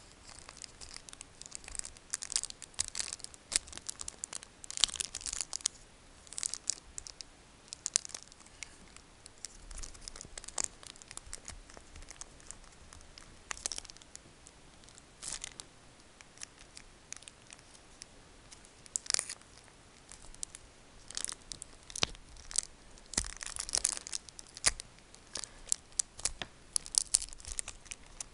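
Foil Pokémon booster-pack wrapper and trading cards being handled: irregular crinkles and papery crackles, busier in the last few seconds.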